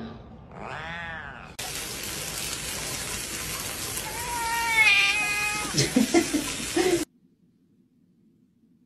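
A cat meows once. Then water sprays steadily from a shower or tap while a wet cat gives one long drawn-out meow, followed by a few short sharp sounds. The spray cuts off suddenly about seven seconds in, leaving only a faint low hum.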